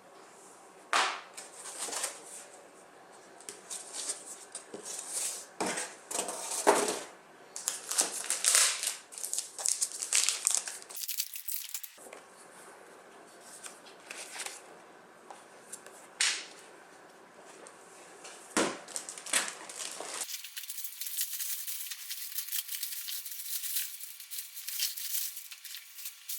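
Packaging being handled and opened: plastic wrapping crinkling and tearing in irregular sharp rustles, turning about twenty seconds in to a thinner, steadier crinkling.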